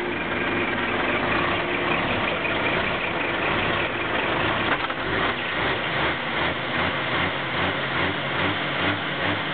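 Heavy truck's diesel engine idling steadily; from about halfway through a low, even throb comes in at roughly two beats a second.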